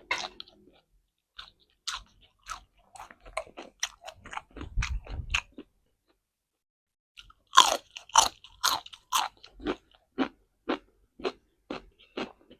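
Close-up mouth sounds of chewing crunchy raw vegetables. Scattered crunches in the first half, a short pause, then a steady run of loud crunches about two a second.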